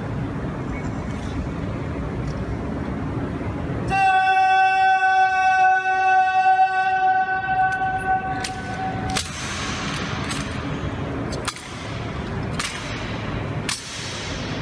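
One long steady horn-like tone sounds for about five seconds. Then sharp clacks and knocks ring out in the echoing marble hall, several in a row, as the honor guard begins its rifle drill.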